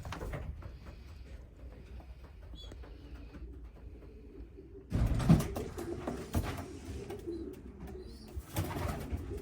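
Racing pigeons cooing, a low continuous burble. About halfway through, louder rustling and knocking join in.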